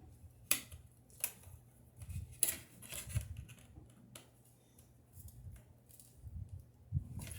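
Small, sharp clicks and taps of metal tools and parts against a disassembled iPhone 6S Plus's metal frame, several of them at irregular intervals.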